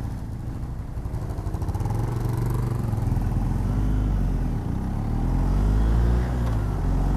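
BMW R1250 GS Adventure's boxer-twin engine pulling away from a stop and accelerating. The engine note rises as the bike gathers speed, with a brief dip about halfway through.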